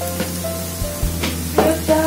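Spice paste sizzling in a wok, with a spatula scraping the pan a couple of times in the second half, under steady background music.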